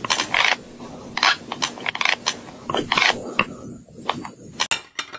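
Teeth grinding: an irregular run of rough scraping noises, with a few sharp clicks near the end.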